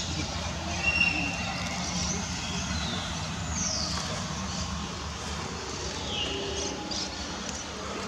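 Steady low outdoor background rumble with a faint hum, and a few short, high bird chirps that fall in pitch.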